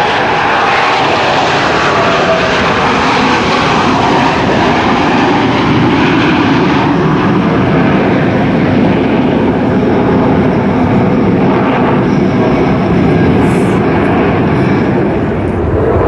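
Jet noise from four F/A-18 Hornets flying in diamond formation, their twin turbofan engines making a loud, steady roar. About halfway through the higher hiss fades and the sound turns deeper.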